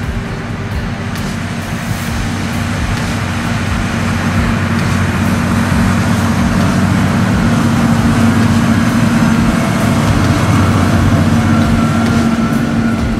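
Heavy diesel engine of a large farm vehicle running steadily. It grows louder over the first two thirds and eases off a little near the end.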